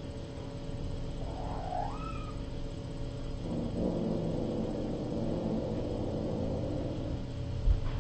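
A kitten gives one short rising meow about two seconds in, over a steady electrical hum. A few low thumps come near the end.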